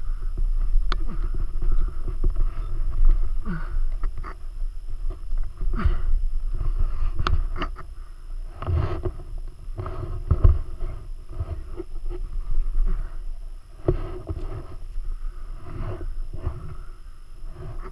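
Close, uneven handling and scuffing noises with laboured breathing on a helmet-mounted camera, as a fallen dirt bike is wrestled about on grass, with rumble from wind and movement on the microphone. Scattered sharp clicks and knocks run through it. No engine is running.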